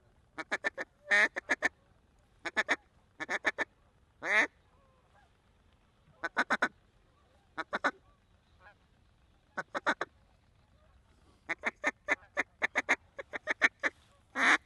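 A mallard duck call blown in quick runs of three to six short quacks, again and again, with a few longer wavering notes mixed in, to bring ducks in.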